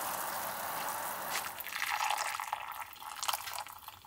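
Spruce-needle sugar syrup simmering in a frying pan with a steady hiss. About a second and a half in it gives way to the syrup being poured from the pan through a paper-towel filter, trickling and then dripping as the pour tapers off near the end.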